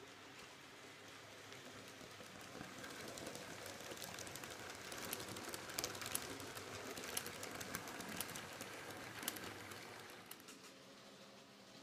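N gauge model of a red DB regional electric multiple unit running past on the track: a faint rolling rattle that grows louder, with scattered sharp clicks from its wheels on the rails, then fades away about ten seconds in.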